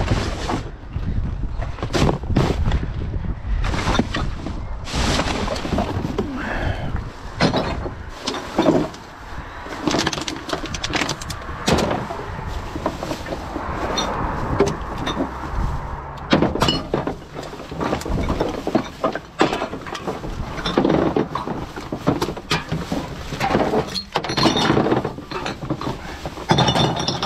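Rubbish being rummaged through in a bin: repeated knocks, clatter and rustling as items are pushed about. Wind buffets the microphone for the first few seconds.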